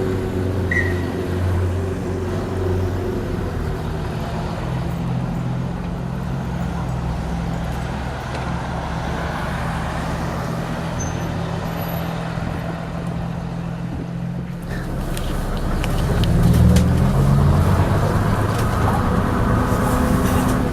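Leyland Atlantean double-decker bus's diesel engine running under way at a steady note. About fifteen seconds in, rattling clanks start, and the engine note rises and grows louder as the bus pulls harder.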